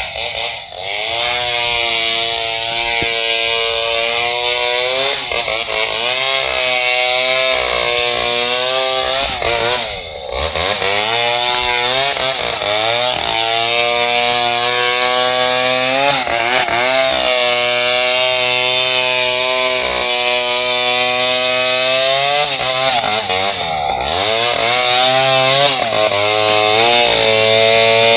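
Two-stroke chainsaw running hard while cutting a large log, its engine pitch sagging and picking up again over and over as it bogs under load.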